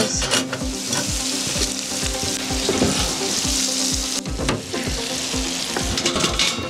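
Chopped peppers and onions sizzling as they fry in a paella pan over a wood fire. The sizzle is a dense, steady hiss that drops off sharply about four seconds in and carries on much fainter.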